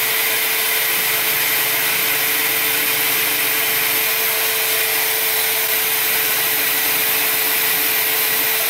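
DeWalt band saw running steadily while it cuts through braided 6AN hose at a taped mark: an even motor-and-blade whir with a steady hum under it.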